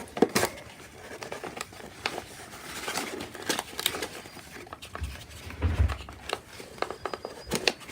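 Handling noise from prying a stuck wax seal stamp out of its packaging: irregular rustling, scraping and clicking of the box and insert, with a couple of dull bumps about five to six seconds in.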